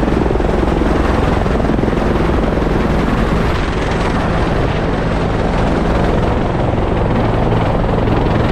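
Helicopter running close by: a loud, steady rotor and engine noise that holds unchanged throughout.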